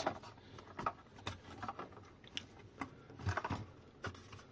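Light clicks, knocks and scrapes of a hard plastic e-bike battery case being handled as the 18650 cell pack is slid out of it, scattered and irregular.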